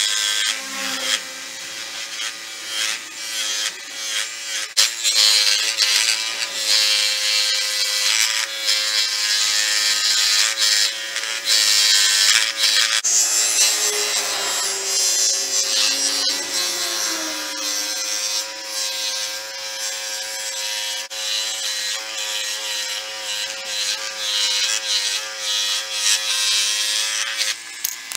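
Electric power tool running steadily under load: a constant motor whine under a rough abrasive hiss, as when metal or wood is ground or sanded.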